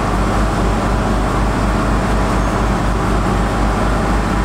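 Steady mechanical drone with a low, evenly pulsing hum, like an engine or motor running, loud enough to cover the soft tapping of the flour sieve.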